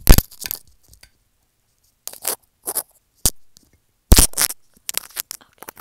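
Scraping and crunching handling noises right on the microphone in short irregular bursts, the loudest at the very start and again about four seconds in: a hand rubbing and tapping against the recording phone.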